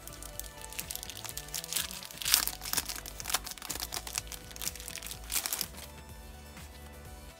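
Clear plastic wrapping crinkling as it is peeled off a small card holder by hand, in irregular crackles that are loudest a couple of seconds in, over steady background music.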